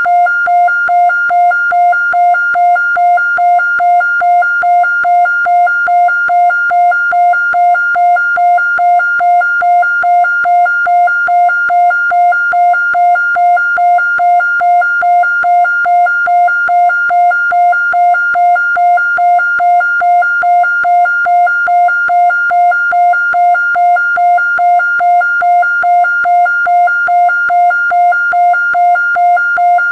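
Siren presented as a 1970s Japanese police siren: a single fixed-pitch tone with overtones, pulsing on and off rapidly and evenly, with no rise or fall in pitch.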